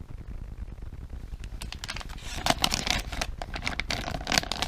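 Plastic soft-bait packaging crinkling and crackling as it is handled, starting about a second and a half in and going on in quick irregular bursts.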